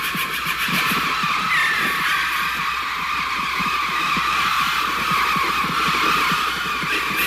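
Synthesised bird-flock effect from a Mixtur-Trautonium: a dense, steady wash of high, screechy cries over rapid, irregular fluttering pulses, the electronic imitation of a mass of birds' calls and wingbeats.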